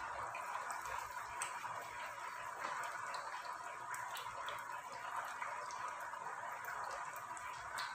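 An anarsa frying gently in hot oil in a small kadhai on a low flame: a steady sizzle with small crackles, while hot oil is ladled over its top with a slotted spoon and drips back into the pan.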